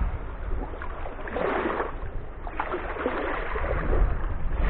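Small waves lapping and splashing at the edge of a sandy shore, over a steady low rumble, with the splashing strongest near the end.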